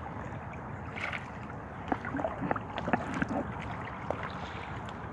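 Small lake waves lapping at a grassy shore, with wind on the microphone and a few short splashes and knocks between about one and three and a half seconds in.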